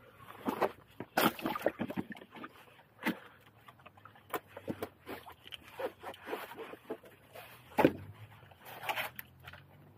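Irregular knocks, clacks and scrapes of rocks and stones being handled and shifted while searching under boulders on a rocky shore. The loudest knock comes about eight seconds in.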